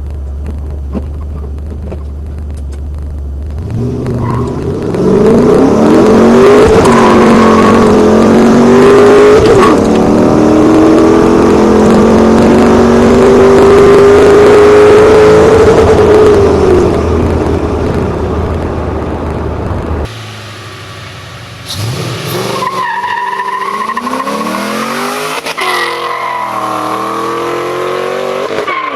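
Modified 2006 Ford Mustang GT's 4.6-litre V8, breathing through long-tube headers, an X-pipe and a Borla axle-back exhaust. It idles at first, then about four seconds in it accelerates hard through the gears of its manual gearbox, the pitch climbing in each gear and dropping at each shift before the engine eases off. After a break near the middle, the engine revs up and down again.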